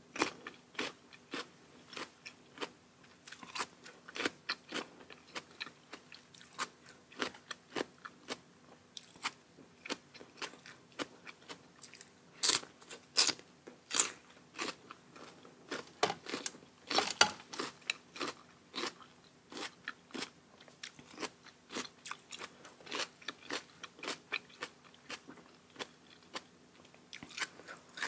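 A person eating close to the microphone: steady chewing with many sharp, irregular crunches, a few markedly louder ones about halfway through, over a faint steady hum.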